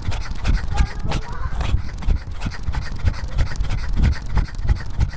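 A running cat's quick panting breaths and footfalls, heard very close through a camera strapped to its body: a fast, rhythmic thudding, several beats a second.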